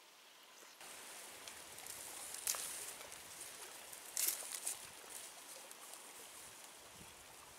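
Cattail stalks being pulled apart and peeled by hand: rustling with a few sharp snaps, over a steady hiss.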